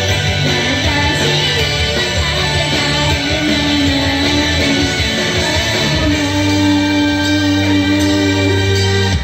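Female idol group singing live into microphones over loud pop-rock music through the PA, with long held notes in the second half.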